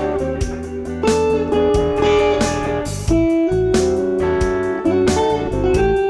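Electric guitar improvising blues phrases built on double stops over a triplet-feel shuffle blues backing track in A, with drums and bass keeping a steady groove.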